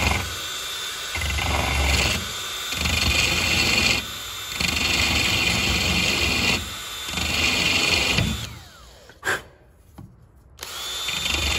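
Cordless drill spinning a rotary burr against broken plastic, grinding down a fractured surface so that a hole can be drilled there. The whine runs in stretches of a few seconds with short dips between. It stops about eight seconds in, a single click follows, and the drill starts again near the end.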